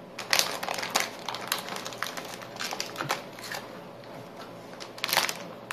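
Metallized anti-static bag crinkling and crackling as a graphics card sealed inside it is handled and lifted out of a cardboard box, with a louder burst of crinkling about five seconds in.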